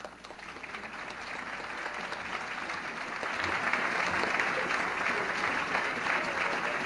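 Large crowd applauding, building up over the first few seconds and then holding steady.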